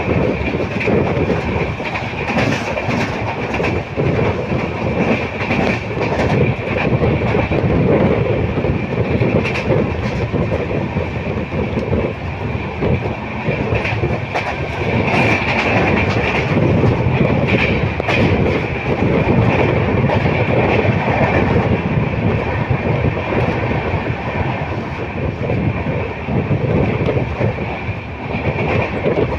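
Passenger train running at speed, heard close up from an open coach door: wheels clattering over the rail joints, with a steady high tone from the wheels on the rails.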